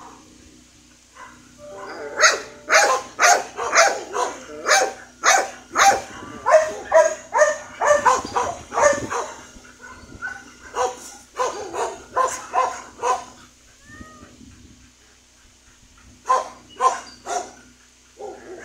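Dog barking repeatedly, about two barks a second, in three runs separated by short pauses.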